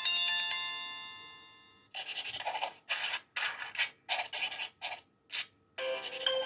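Samsung Galaxy Tab 3 Lite ringtones playing through the tablet's speaker. A chiming melody ends and rings away over about two seconds. Then a ringtone of short raspy noise hits plays in an uneven rhythm, and about six seconds in the next ringtone's melody begins.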